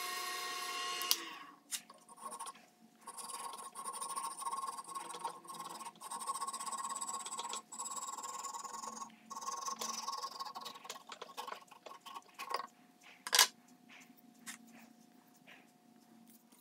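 Wood lathe motor running with a steady whine, stopping about a second in. A quieter whine follows, its high tone slowly falling in pitch, with light scraping and handling sounds and one sharp click about thirteen seconds in.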